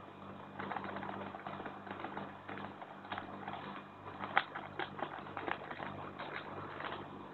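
Small plastic seasoning sachet crinkling and crackling between the fingers as it is squeezed and opened, in quick irregular clusters, with one sharper crack about four and a half seconds in.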